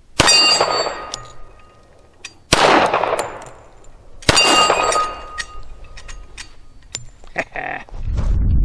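Three shots from a Thompson Auto-Ordnance 1911 .45 ACP pistol, about two seconds apart, each followed by a steel target plate ringing. A steady low rumble takes over near the end.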